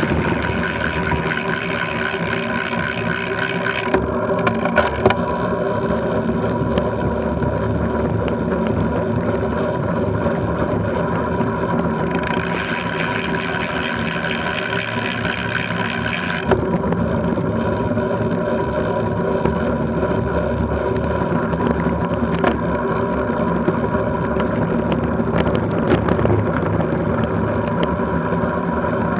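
Steady tyre, drivetrain and wind noise picked up by a camera mounted on a road bike rolling at about 25 mph over rough tarmac, with a few brief knocks from bumps in the road.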